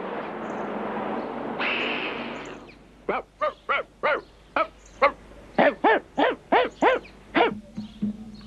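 Cartoon dog sound effects: a rushing noise for about three seconds, then a quick run of about a dozen short yaps, each rising and then falling in pitch.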